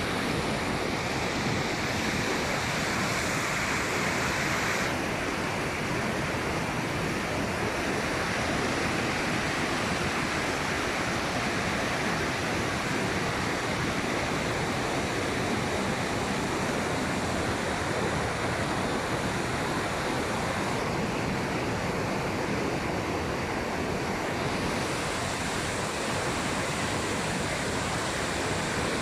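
Swollen mountain river in fast flow, its water rushing steadily over rocks.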